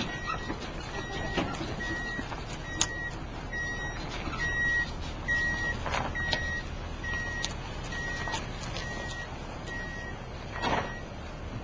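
A vehicle's reversing alarm beeping steadily, a little more than once a second, over a low engine rumble. The beeps stop shortly before the end.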